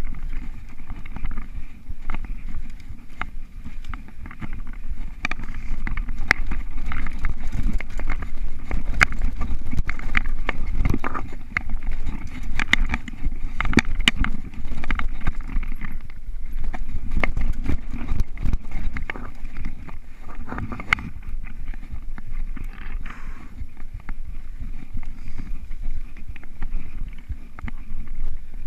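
Mountain bike ridden fast over dirt singletrack: a steady low rumble of tyres and wind on the action camera, with frequent sharp rattles and knocks as the bike jolts over roots and bumps. The rattling thins out in the last few seconds as it rolls onto smooth grass.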